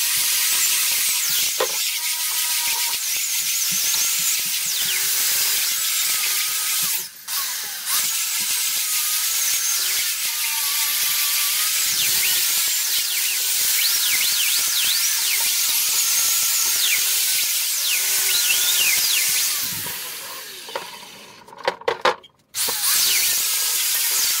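Angle grinder with a wire brush scrubbing rust and paint off an old steel bench vice: a steady high whine with a harsh scratching hiss. It dips briefly about a third of the way in. Near the end it is switched off and winds down, a few clicks follow, then it starts up again.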